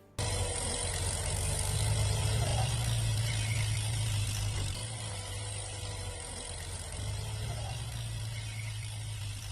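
A motor vehicle's engine running steadily, a low hum under a loud, even hiss. It starts abruptly just after the beginning.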